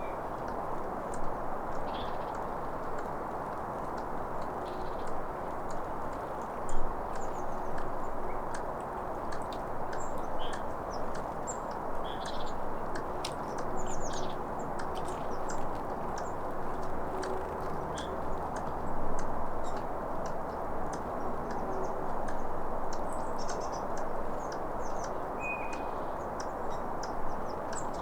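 Squirrel making rapid, irregular clicking calls, over a steady background hiss.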